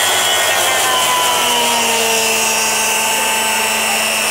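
Mafell milling machine, a hand circular saw body fitted with a 60 mm-wide cutter head, running on its guide rail and milling a 4 cm tenon into a timber beam. A steady, loud motor whine with the noise of the cutter biting wood, shifting slightly in pitch as the load changes.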